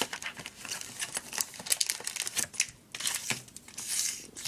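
Plastic blister shell and cardboard backing of a trading-card blister pack being torn open and handled: irregular crinkling with quick clicks and crackles.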